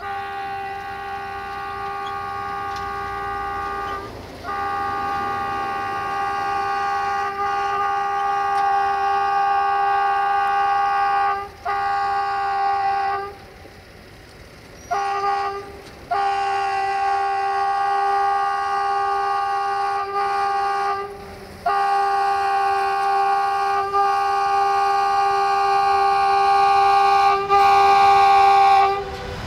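Horn of a CFR class 60 (060-DA, LDE2100) diesel-electric locomotive hauling a freight train, sounding a string of long steady blasts with short breaks between them and a longer pause a little before halfway.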